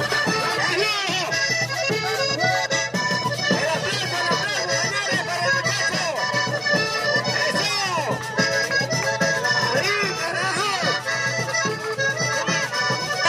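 Accordion-led traditional music playing continuously.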